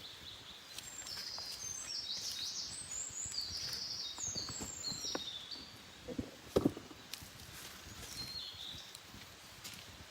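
A wild songbird singing a long, rapid string of short high notes, then a few more notes later, with scattered faint clicks and a couple of louder knocks about six and a half seconds in.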